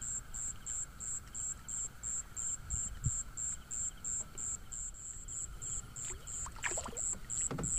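Crickets chirping in an even rhythm, about three chirps a second, over a faint steady insect drone. A few soft knocks and rustles come near the end.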